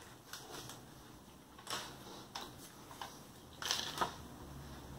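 Short crinkles and crunches of eating and handling packaging: chewing of a crispy cheeseburger melt topped with fries, and a plastic ketchup packet being picked up. The clicks come a few at a time, with the loudest cluster about four seconds in.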